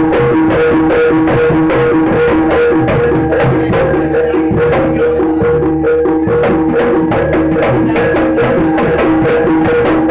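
Jaranan ensemble music: drums and struck percussion playing a fast, even rhythm over two steady held tones.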